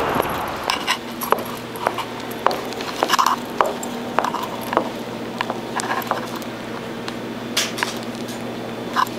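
Footsteps of boots on a hard tiled floor, short sharp clacks at about one to two a second, over a steady low hum.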